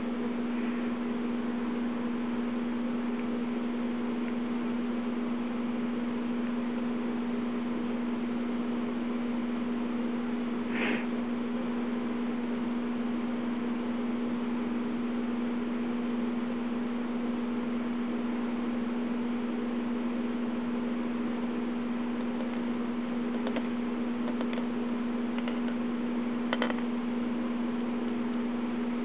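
Steady low electrical hum with a constant hiss, broken only by two faint brief clicks, one about eleven seconds in and one near the end.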